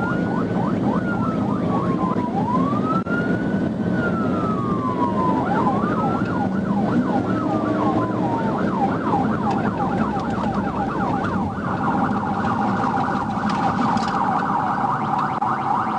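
Police sirens: slow rising-and-falling wails overlapping quick repeated yelps, changing about 11 seconds in to a faster, steadier pulsing pattern. Under them is the constant engine and road noise of a patrol car at highway pursuit speed.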